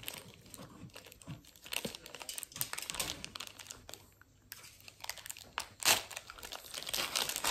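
Plastic ice-cream lolly wrapper crinkling and crackling as it is handled and torn open, with a short lull about four seconds in and the loudest crackle just before six seconds.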